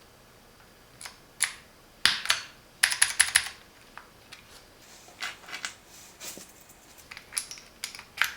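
Keychron Q6 Max mechanical keyboard giving sharp plastic clicks as keycaps are pressed down onto its switches, in a quick cluster about two to three seconds in and more scattered clicks after.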